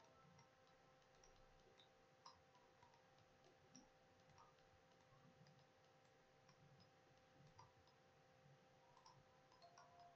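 Near silence with faint, scattered computer mouse clicks, a few seconds apart and irregular, over a faint steady hum. The clicks are edges being selected one by one in CAD software.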